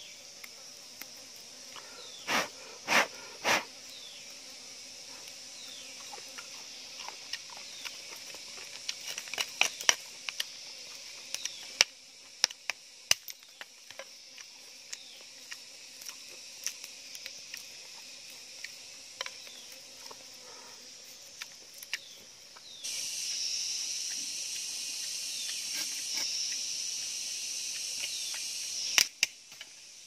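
Insects chirring steadily in a tropical rainforest, with short falling calls repeating every few seconds and scattered small clicks and knocks from handling work. Three louder knocks come a few seconds in, and near the end a louder high sound starts abruptly, runs for about six seconds and stops suddenly.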